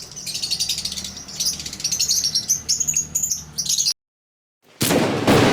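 Lovebirds chattering in a rapid stream of high, shrill chirps over a low steady hum, cut off abruptly about four seconds in. After a moment of dead silence, a loud noisy burst starts near the end.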